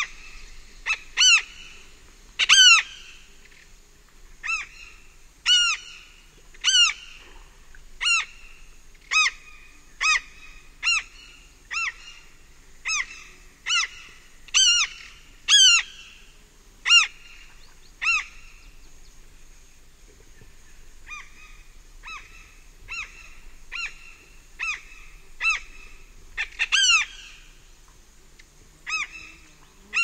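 Large-billed tern giving repeated short, harsh flight calls close up, about one a second, each call rising and falling in pitch, with a brief pause about two-thirds of the way through. Faint distant birds and insects underneath.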